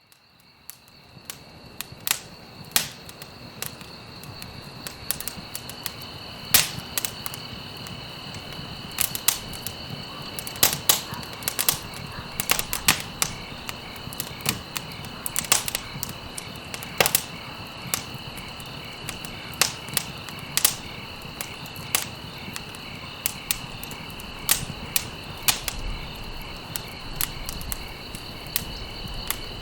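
Campfire crackling, with sharp irregular pops from burning stalks, fading in over the first few seconds. A steady high insect trill, like crickets, runs underneath.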